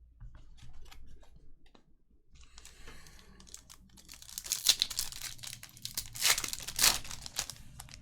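Foil trading-card pack wrappers being torn open and crinkled, with light clicks of card handling at first; the tearing and crinkling grow loudest in the second half.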